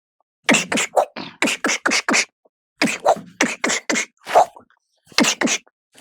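A mimicry artist making rapid percussive mouth sounds, beatbox-like: short sharp pops and smacks in quick clusters of two to four, with brief pauses between clusters.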